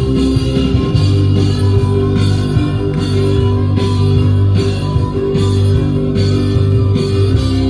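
Rock band recording with guitar to the fore, playing steadily.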